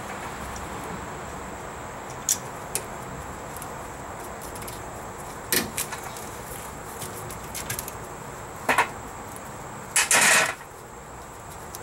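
Scattered metallic clicks and clinks of a ratchet and socket being handled on a rear brake caliper, with a louder clatter lasting about half a second near the end.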